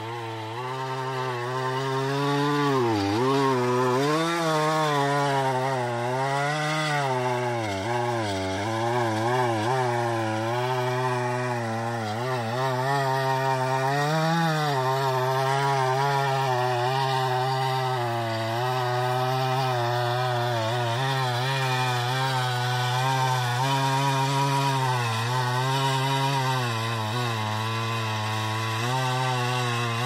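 Two-stroke chainsaw running at high speed under load in a chainsaw mill, ripping a log lengthwise into a slab. Its engine pitch wavers up and down as the cut loads it.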